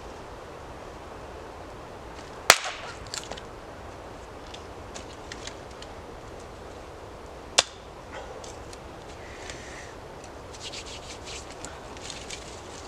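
Dry dead sticks snapped by hand: two sharp, loud cracks about five seconds apart, with smaller cracks and rustling of wood in between.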